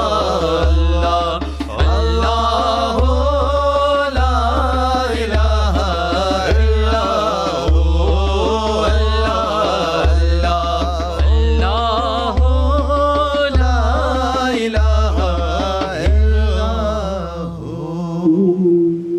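An Urdu naat (devotional song) sung in long, wavering melodic phrases over a deep low pulse that comes about once a second. Near the end the pulse fades and the voice holds a final note.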